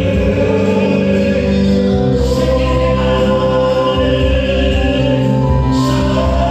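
Gospel worship music with group singing over sustained keyboard-style chords and bass, the voices holding long notes.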